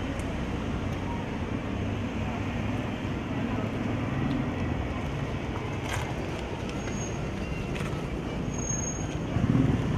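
Steady low rumble of vehicle engines and street traffic, with a couple of sharp clicks about six and eight seconds in and a louder surge of rumble near the end.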